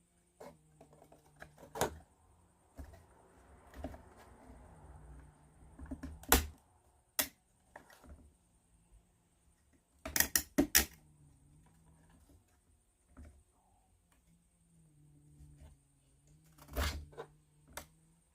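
Small plywood kit parts clicking and tapping as they are handled and pushed together at their joints, with a quick run of four or five clicks about ten seconds in and a soft rubbing of wood on wood a few seconds in.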